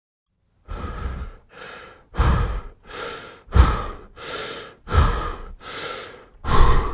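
A person breathing heavily in and out, louder and softer breaths alternating, about five cycles with short silent gaps between breaths.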